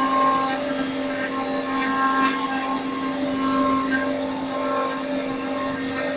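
A three-axis CNC router's spindle running steadily while it machines a door, a constant whine with a higher cutting tone that waxes and wanes as the tool moves.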